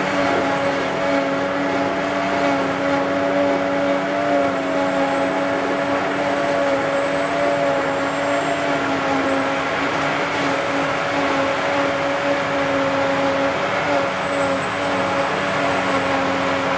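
Steady machine hum with several held tones that waver slightly in pitch a few times.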